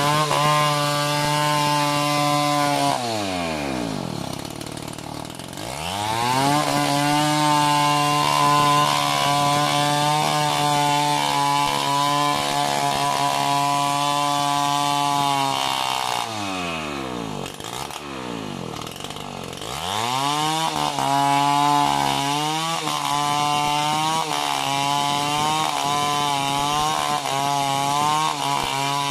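Chainsaw cutting into a coconut tree trunk, its engine running steadily at high revs. Twice it drops toward idle and revs back up: about three seconds in and again around sixteen seconds.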